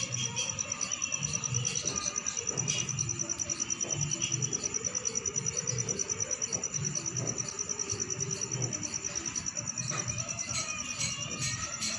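Cricket chorus: a steady, high-pitched, fast-pulsing trill, with faint scattered bird calls of the early-morning chorus beneath it.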